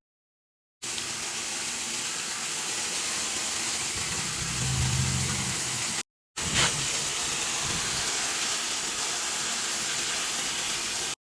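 Garden hose spraying water onto an outdoor air-conditioner condensing unit, a steady hiss, cooling the overheated compressor and washing the clogged condenser coil. The spray cuts off abruptly twice.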